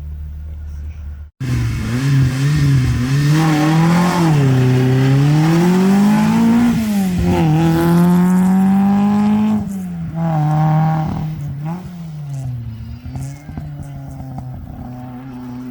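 Historic rally car engine revving hard at a stage start, the revs swinging up and down repeatedly. It drops back to lower, wavering revs after about nine seconds. An abrupt switch from a low idle to the loud revving comes just over a second in.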